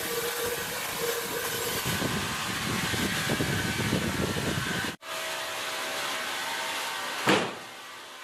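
Steady, dense machine noise that breaks off abruptly about five seconds in, followed by a lower, steadier hum with one sharp knock about seven seconds in.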